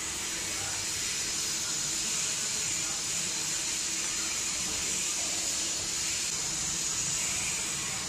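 Steady, even background hiss.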